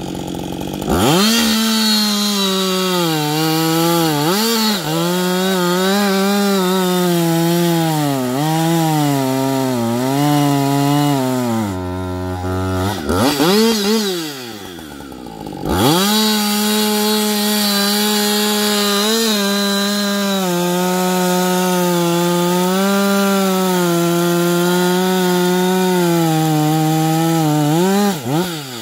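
Husqvarna 560 XP two-stroke chainsaw with an Oregon .325 ripping chain, revving up from idle and running at full throttle while cutting wood, its pitch sagging and recovering under the load. Around the middle it drops to idle, is blipped once, then goes back to full throttle and cuts again before dropping to idle near the end.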